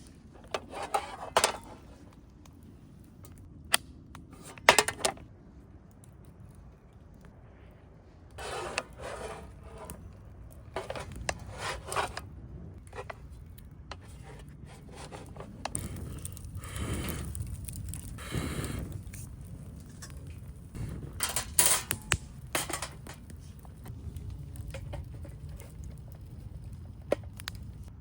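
Cookware and utensils being handled: irregular clinks, knocks and short scrapes, with a few louder sharp knocks in the first few seconds.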